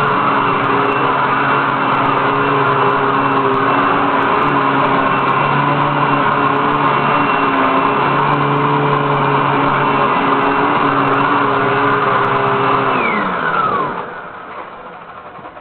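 Hoover WindTunnel upright vacuum cleaner running steadily with a steady motor whine. About 13 seconds in, the whine falls in pitch and the motor spins down and goes quiet.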